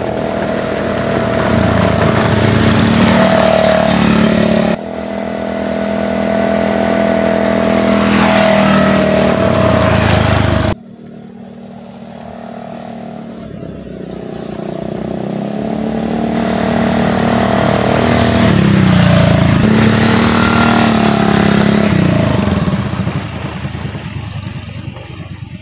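Small motor scooter engines running as riders pass along a road. The level jumps abruptly twice early on, then rises to a peak past the middle and fades as the scooters ride away.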